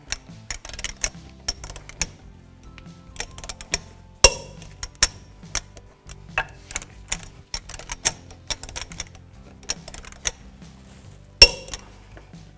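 Lug nuts on a pickup's steel wheel being tightened with a torque wrench and 22 mm socket: quick ratchet clicks and the socket clinking onto the nuts, with two sharp metallic clinks that ring briefly, about four seconds in and near the end. Soft background music underneath.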